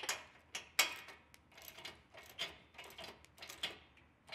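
Irregular light metallic clicks and ticks from hand tools being worked on a Kawasaki FR691V mower engine, about three or four a second.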